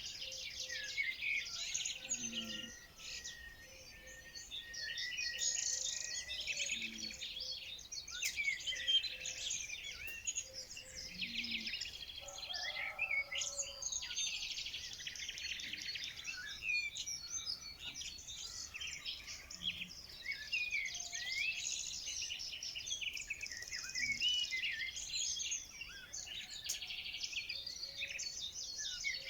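Many songbirds chirping and singing at once, a dense overlapping chorus of quick chirps and rapid trills.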